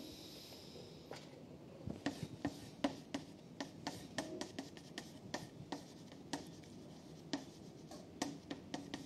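Writing: a run of irregular light taps and short scratches, starting about a second in.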